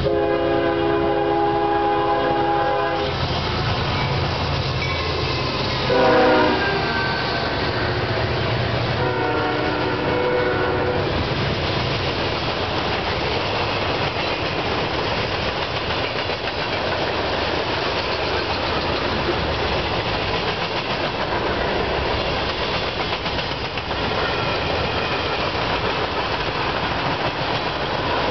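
Diesel-hauled freight train sounding three air-horn blasts as it approaches and passes, with the diesel engines humming underneath. The second blast, about six seconds in, is the loudest and falls in pitch as the locomotive goes by, and the third sounds lower. After about eleven seconds the freight cars roll past steadily, wheels clacking over the rail joints.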